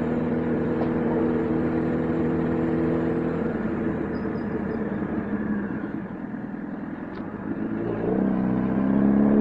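Motorcycle engine running at a steady pace, easing off about six seconds in, then pulling away again with a slowly rising pitch near the end.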